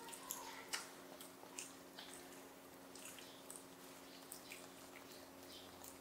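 Faint, scattered wet clicks and smacks of young monkeys chewing jelly, a sharper click or two in the first second, over a faint steady hum.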